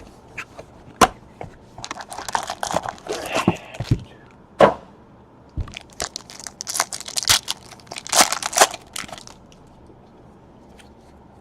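Trading-card packaging being torn open and crinkled by hand, with sharp cardboard clicks and snaps, as a box of baseball cards is opened. The rustling comes in two bouts, the first about two seconds in and the second about six seconds in, and is quieter near the end.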